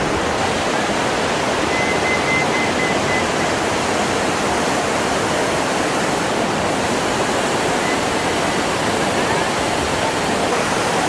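Fast mountain river rushing over rocks, a loud, steady, unbroken rush of white water.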